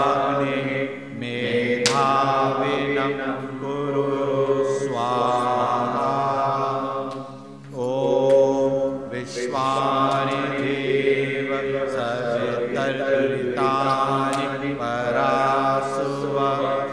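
Sanskrit Vedic mantras chanted in a steady recitation, with a short pause for breath about seven and a half seconds in.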